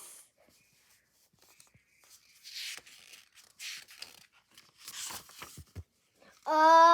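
Soft paper rustling and handling noise in several short bursts, as of a picture book's pages being turned. Near the end a child's voice calls out one long, drawn-out word.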